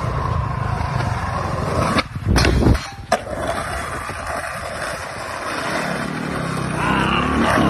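Skateboard wheels rolling over concrete. About two seconds in comes a sharp pop, then a short loud grind along the metal handrail, then two hard slaps of the board landing about a second later. The wheels roll on across the asphalt after that.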